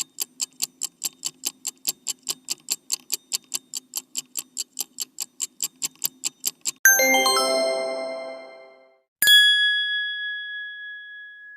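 Sound-effect clips played back to back: a clock ticking, about four ticks a second, for some seven seconds; then a bright chime of many bell tones that rings out; then a single bell ding that rings out slowly.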